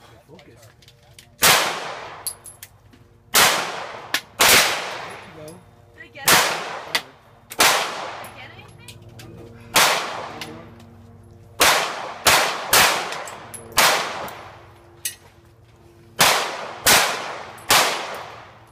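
A series of over a dozen loud, sharp bangs at uneven intervals, each with a long echoing tail that fades over about a second.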